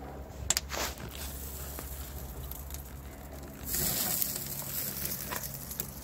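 Scattered crackles and clicks from a wood fire burning in a barrel smoker, over a steady low rumble, with a brief hiss about four seconds in.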